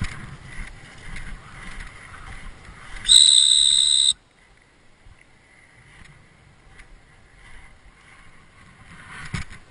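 Dog-training whistle blown once in a single steady, high-pitched blast lasting about a second, about three seconds in. It is set against a low rustling noise before it, with a short dull thump near the end.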